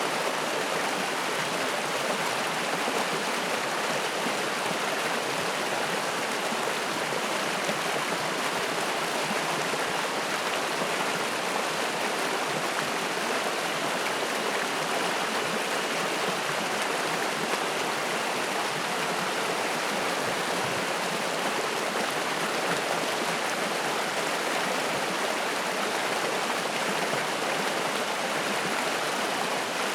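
Mountain stream fed by spring water, rushing and splashing over rocks in a steady, unbroken sound.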